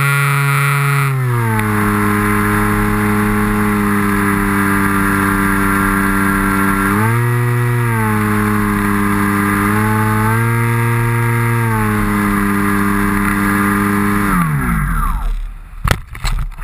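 Electric motor and propeller of a small foam RC plane whining steadily in flight, the pitch dropping about a second in and rising briefly twice with the throttle. Near the end the motor winds down and a few sharp knocks follow as the plane touches down in snow.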